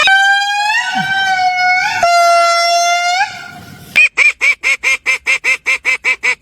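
Animal calls: two long, steady honking calls, then, after a brief gap, a rapid series of short calls at about five a second.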